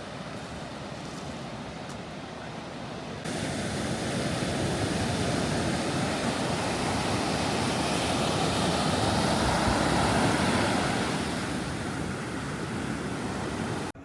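Sea surf washing onto a beach, a steady rush that grows louder about three seconds in, swells and then eases near the end.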